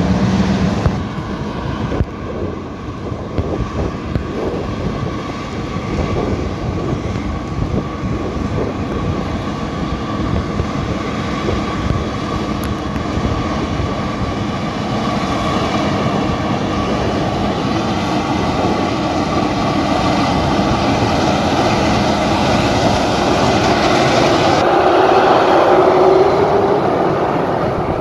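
A large engine running steadily with a continuous mechanical drone, growing louder in the last few seconds.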